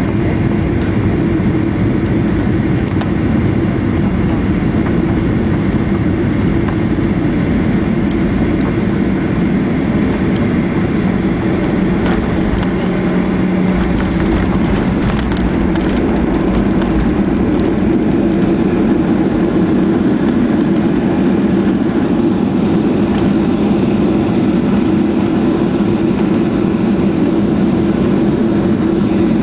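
Steady engine and airflow rumble inside a jet airliner's cabin as it lands, the noise carrying on unbroken through touchdown and the roll along the runway.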